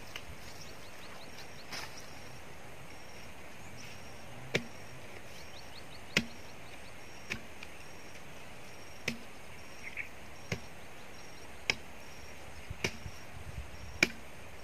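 Sharp chopping blows, about nine in all at irregular spacing, as a hand tool cuts into the roots at the base of a tree stump.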